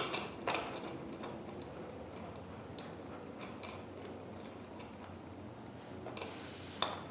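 Small metal hardware clicking and clinking as a bolt and spacer are worked into the steel headrest-adjusting bracket of a Pilates reformer carriage: a few sharp clicks at the start, scattered faint ticks in the middle, and a cluster of clicks near the end.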